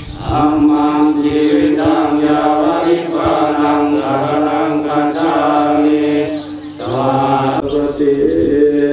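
Buddhist chanting of Pali verses, recited on one steady pitch with a short pause about six and a half seconds in.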